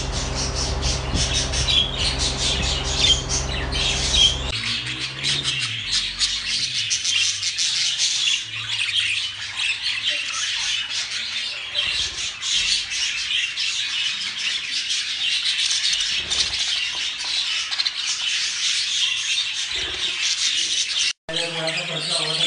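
Many budgerigars chattering and squawking at once, a dense, continuous flock chatter. A low steady hum runs under it for the first four seconds or so.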